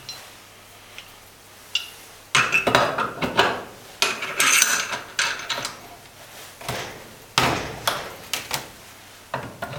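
Metal-on-metal clinks and knocks as the steel parts of an injector clamping device are repositioned by hand: the adapter plate being moved and set on the stand. After a quiet start, a quick run of clatter comes about two seconds in, then scattered single knocks toward the end.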